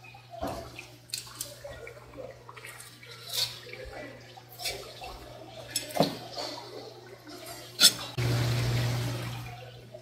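Kitchen knife tapping and scraping on a wet plastic cutting board while rock bream is filleted. There is a loud knock a little before the end, then water runs for about a second and a half and fades.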